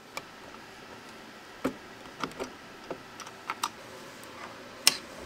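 Irregular light clicks and taps as a metal laser control box and its cables are handled and fitted onto a 3D printer's frame, with the sharpest click near the end.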